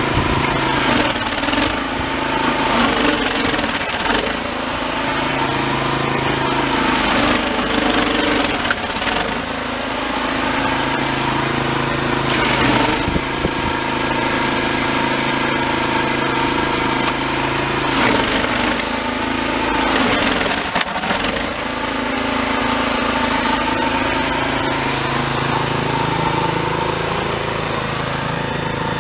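Toro Snowmaster 724 QXE snowblower's single-cylinder engine running under load in heavy, refrozen snow. Its pitch sags and recovers every few seconds as it pushes into the snow.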